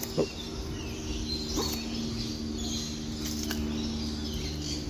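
Aviary ambience: many small birds chirping and calling over a steady low hum, with one short, louder call that rises and falls about a quarter second in.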